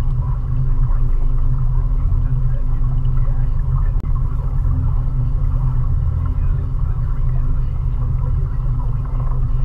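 Mariner 20 hp outboard motor pushing a small cruiser along at a steady speed: an even, low engine drone with no change in revs, briefly dipping about four seconds in.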